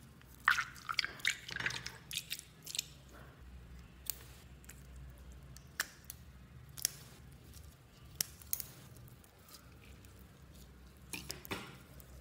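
Wet squelches and sticky crackling of a purple mesh stress ball being squeezed into a tray of slime. The crackles come thick in the first few seconds, then as scattered single pops, with another short flurry near the end.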